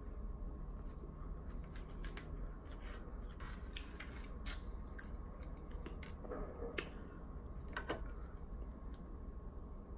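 Close-up chewing of food, with scattered sharp clicks of a plastic fork against a takeout container.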